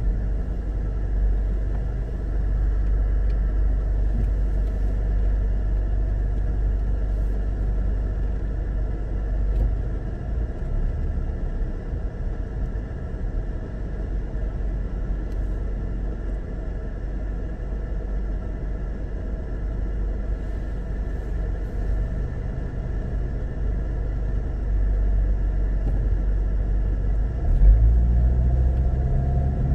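Car cabin noise: the low rumble of the engine and road while driving slowly, easing off while the car waits at a light, then rising near the end as it pulls away.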